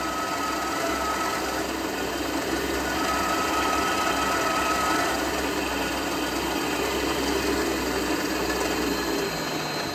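Drill press running with a freshly hand-sharpened 3/8-inch twist drill cutting down through a metal block: a steady motor and cutting noise, with a faint whine that comes and goes. The bit is cutting evenly, pulling a double curl of chip.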